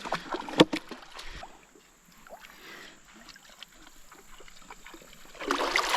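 Shallow river water splashing and sloshing, with a few sharp knocks in the first second and a louder rush of splashing near the end.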